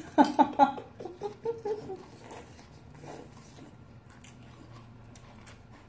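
Ramen noodles being slurped and chewed close to the microphone, with many small wet mouth clicks and light chopstick taps. The loudest sounds come in the first second, then the eating goes on more quietly.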